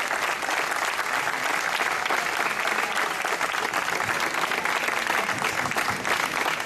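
Crowd applauding steadily, many hands clapping.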